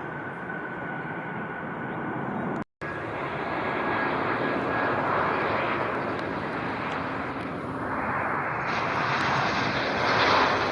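Jet airliner engines running, a steady broad rush with a faint high whine. The sound drops out completely for a moment about two and a half seconds in, then returns slightly louder and swells near the end.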